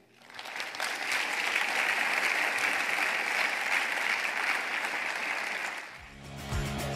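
An audience applauding after a talk. The clapping swells over the first second, holds steady, then cuts off about six seconds in as music with a beat starts.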